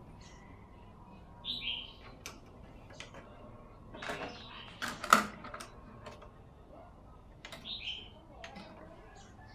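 Clicks and clacks of a TEAC V-5000 cassette deck being handled: the cassette door is opened, a tape is loaded, and transport buttons are pressed. A cluster of clatter ends in the loudest clack about five seconds in. A bird chirps twice, briefly, early on and near the end.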